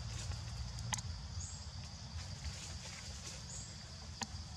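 Forest ambience: a steady high insect drone with a few short high bird chirps over a low rumble, and two sharp clicks, one about a second in and one near the end.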